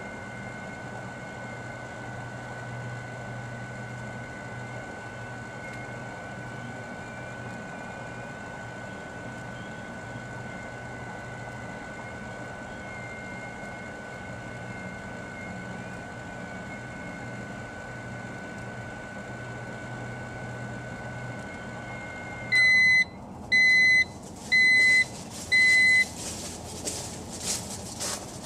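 Microwave oven running with a steady hum and a constant high tone, then stopping about 22 seconds in and beeping four times, about a second apart, at the end of its cycle. A few clicks follow near the end.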